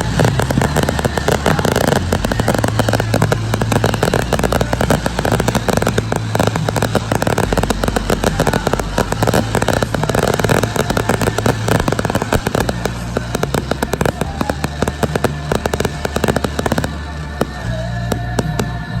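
Fireworks display going off in a dense, continuous barrage of rapid bangs and crackling, easing slightly near the end.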